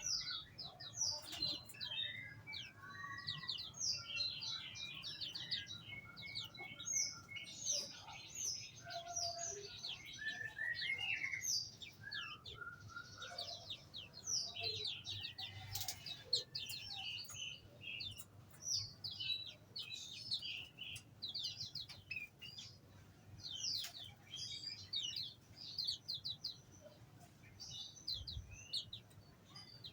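Many small aviary birds chirping and twittering continuously in short, overlapping high calls and quick trills, over a faint low hum.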